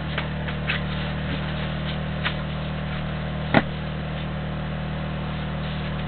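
Small 2-kilowatt petrol generator running with a steady, even hum. A few faint clicks sound over it, with one sharper snap about three and a half seconds in.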